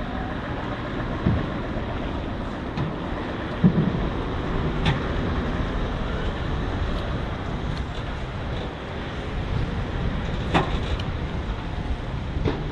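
Heavy truck's diesel engine running steadily with a low rumble, with a few sharp metallic knocks over it, the loudest about four seconds in and others near eleven seconds and at the end.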